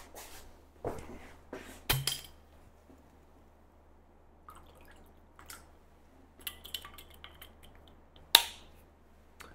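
Glass bottle handled at a table while liquid is poured from it into a drinking glass: scattered small clicks and glass clinks, and a knock about two seconds in. A sharp click near the end, the loudest sound, comes as the bottle is closed.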